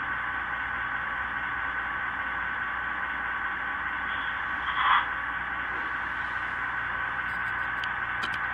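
QSI DCC sound decoders in brass model DD35 diesel locomotives playing a simulated diesel engine idle through their small speakers: a steady, thin, hissy sound with no bass. A brief louder sound stands out just before five seconds in.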